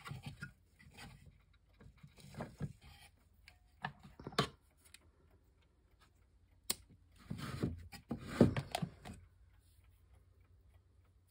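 Handling noises on a craft table: scattered light clicks, taps and rustles as craft supplies are picked up and moved, with a sharp click about halfway through and a busier run of rustling and knocks a little after.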